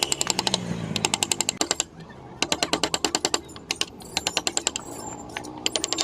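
Rapid runs of sharp clicks, about ten a second, in bursts of roughly a second separated by short pauses.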